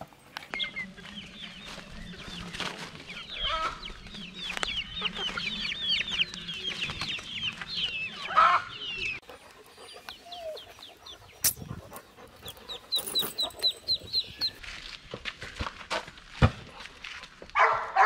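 A brood of baby poultry peeping: many rapid, high, short chirps, with a louder, lower call about eight seconds in and a quick run of evenly spaced peeps later on. A few sharp knocks near the end.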